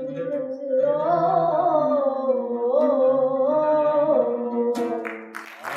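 A singer holding a long, wordless melodic line in Arabic style, the pitch winding up and down and slowly fading. Audience applause breaks out near the end.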